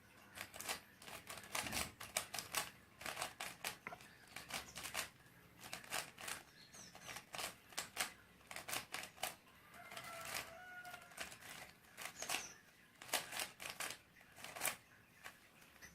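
A Rubik's cube being twisted by hand: light, irregular plastic clicks and rattles, several a second, with short pauses between runs of turns.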